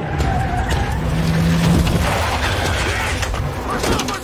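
Vehicles braking hard and skidding to a stop on a dusty gravel roadside, engines running and tyres scrubbing.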